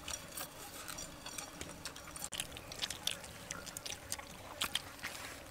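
Several people eating fried noodles with chopsticks: scattered wet chewing and slurping with irregular light clicks of chopsticks against plates.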